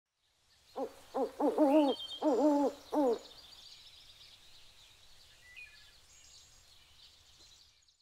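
Owl hooting: a quick run of several hoots, the later ones longer with a pitch that rises and falls, ending about three seconds in.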